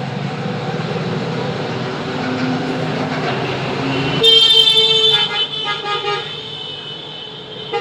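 A vehicle horn honks in several short blasts for about two seconds, starting about four seconds in, over a steady background rumble; a brief toot comes again near the end.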